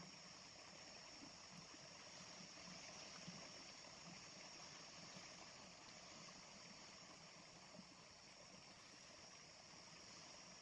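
Faint, steady rushing of a small river flowing, with an even high hiss and no distinct events.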